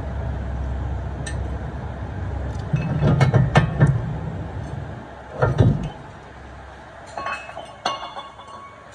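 Metal parts clanking and clinking: several sharp knocks with a ringing metallic tone, in a cluster, then one more, then a few lighter clinks near the end. Under them a low steady rumble drops away about halfway through.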